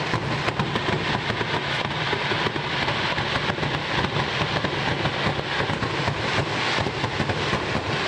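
Dense, continuous crackling of fireworks: a rapid, unbroken stream of small pops and bangs.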